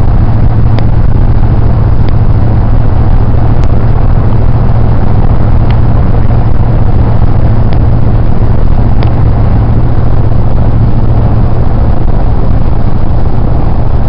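Steady road noise inside a moving car's cabin: a constant low hum under an even rushing hiss, with a few faint ticks.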